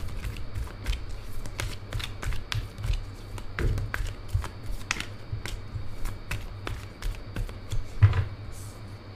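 Tarot deck shuffled by hand: a run of soft, irregular card clicks and rustles, with a louder tap about eight seconds in as a card is laid down on the spread.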